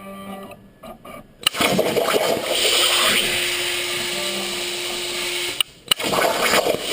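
CNC plasma cutter cutting 11-gauge hot-rolled steel. The table's motors whir at first; about a second and a half in, the arc strikes with a sharp crack and runs as a loud, steady hiss. It stops briefly near the end and then starts again.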